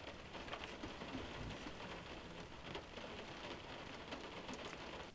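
Faint steady hiss with scattered light ticks.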